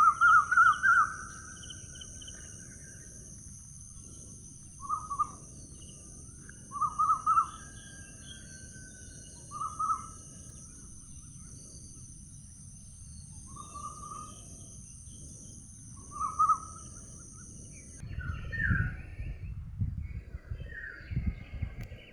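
A wild bird calling repeatedly, short phrases of a few quick notes every two to three seconds, over a steady high hiss. About eighteen seconds in the hiss stops, and higher calls come with low gusty rumbling.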